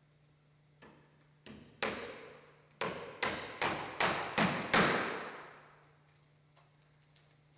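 Hammer driving a nail into a cedar roof cap: about nine blows, a light tap and then a string of strikes roughly 0.4 s apart that grow louder, each ringing briefly.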